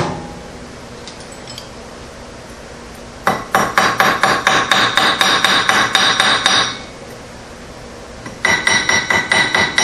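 Rapid hammer taps on metal, about five a second with a ringing tone: one run of about three and a half seconds, then after a pause a shorter run near the end.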